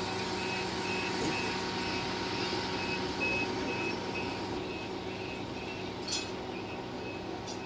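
A reversing alarm beeping rapidly, about two and a half short single-pitch beeps a second, over a steady low machine hum.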